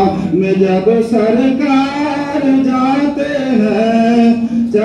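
A naat, an Urdu devotional song in praise of the Prophet Muhammad, sung by one voice in a slow melodic line with long held notes that glide between pitches.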